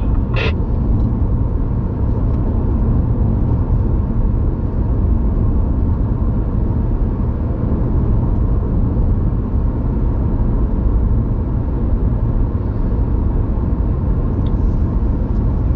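Road and tyre noise of a moving car heard from inside the cabin: a steady low rumble.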